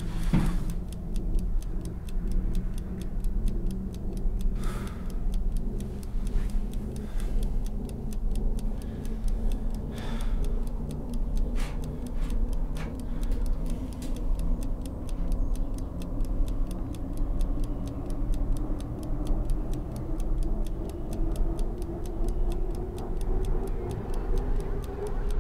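Clock ticking steadily, with a low drone slowly rising in pitch underneath it.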